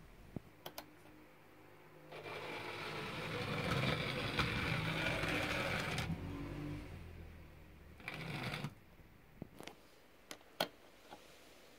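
OO-gauge model railbus (a Dapol railbus kit body on a Lima Plymouth shunter chassis) running past on the layout: its small electric motor and wheels whirring, rising about two seconds in, loudest around the middle and fading away. A second short whirr follows, then a few sharp clicks near the end.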